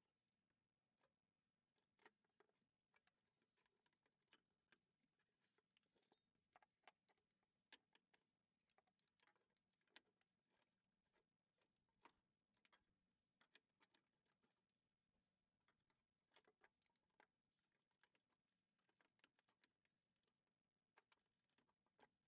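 Near silence broken by faint, irregular small clicks and taps of hand work on the engine, with no steady rhythm.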